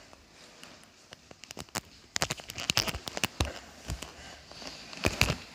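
A small dog moving about close by: a run of irregular clicks and taps, starting about a second and a half in and thickest near the middle and end.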